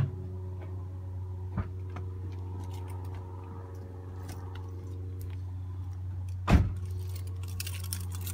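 2006 Nissan 350Z's 3.5-litre V6 idling steadily through its stock exhaust. A car door shuts with a thump about six and a half seconds in, followed by a scatter of faint high clicks.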